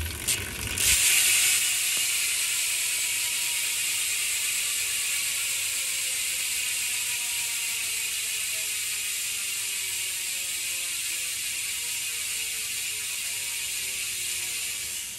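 Profile Elite BMX cassette hub freewheeling on a spun wheel: its pawls click so fast they merge into a loud, steady, high buzz. The buzz starts a little under a second in, falls slowly in pitch as the wheel slows, and dies away near the end.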